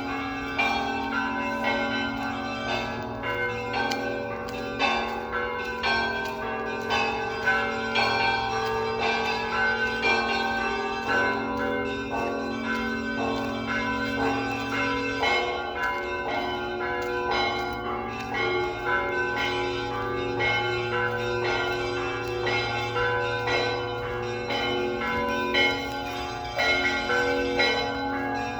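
Russian Orthodox church bells being rung together: quick repeated strikes on smaller, higher bells over the long hum of deeper bells. The deep hum breaks off briefly about halfway through, then carries on.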